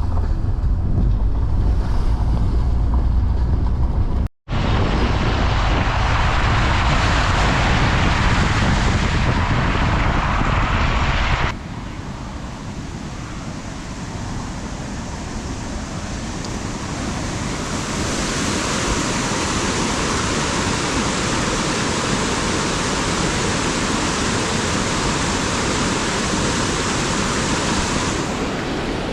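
Steady rushing of wind on the microphone and fast-flowing floodwater. It is heavy with deep rumble at first, cut by a brief dropout about four seconds in. About eleven seconds in it changes abruptly to a lighter, even hiss.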